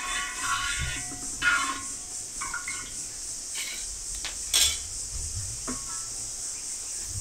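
A steel ladle scrapes and clinks against a wide brass pan as a liquid mixture is stirred. Then come a few separate sharp metal clinks and knocks as the ladle is put aside and the pan is handled, the loudest just past halfway.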